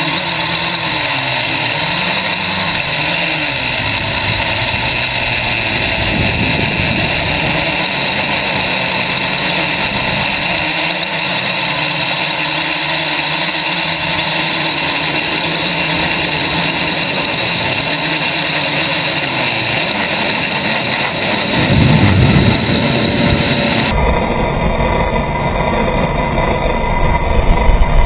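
Quadcopter's four electric motors and propellers whining steadily in flight, heard from a GoPro mounted on the frame, with the rush of prop wash and wind underneath. About 22 s in the rumble swells louder. Near the end the sound turns deeper and duller, played back in slow motion.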